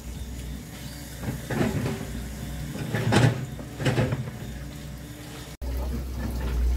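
A plastic water pipe being pulled and handled in gravelly soil: three short scrapes and knocks, at about one and a half, three and four seconds in.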